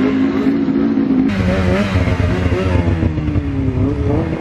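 Snowmobile engines running, their pitch wavering and then slowly sinking, over a low rumble of wind on the microphone. The sound shifts abruptly about a second in.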